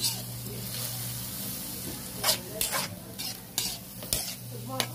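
Chopped green chilies, onions and garlic sizzling in oil and soy sauce in a metal wok while a metal ladle stirs them. The ladle scrapes and clinks against the pan several times, most often in the second half.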